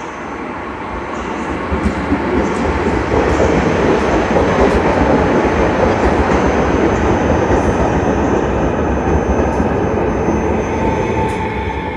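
A passenger train rolling past close by, its wheels rumbling on the rails. It grows louder about two seconds in and eases off near the end.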